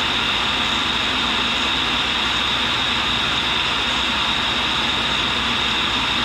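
1942 Cincinnati tool and cutter grinder running, its wheel taking a light finishing grind on the flute of a carbide drill bit: a steady high-pitched hiss and whine with no break.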